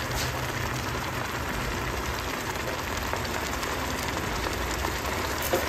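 Noodle soup simmering in a pan: a steady bubbling hiss.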